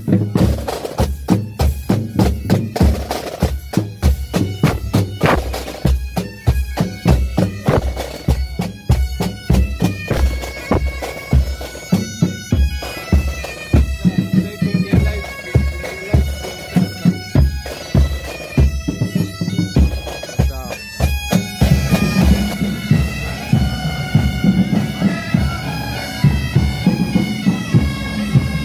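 Pipe band playing: marching drums beat a steady, rapid rhythm while bagpipes come in partway through. For the last quarter or so the bagpipes' steady drone and chanter melody take over as the drumming drops back.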